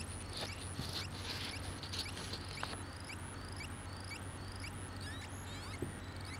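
Solar-powered oscillator bird synth chirping through a piezo disc speaker: short electronic bird-like chirps, each a quick rising sweep, repeating evenly about twice a second, over a steady low background hum.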